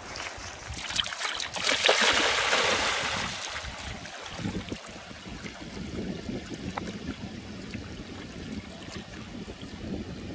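Lake water splashing and lapping around a swimming dog, with a louder rush of splashing about two seconds in that then settles into a lower, uneven wash.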